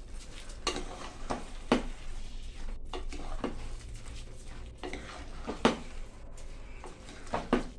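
Metal spoon stirring rice into a chicken mixture in a pressure cooker. It scrapes and knocks against the pot's metal sides in irregular clinks over a soft rustle of the wet rice.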